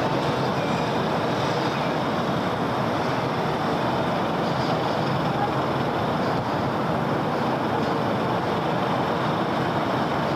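Steady city road traffic: a continuous, even wash of engine and tyre noise with no single vehicle standing out.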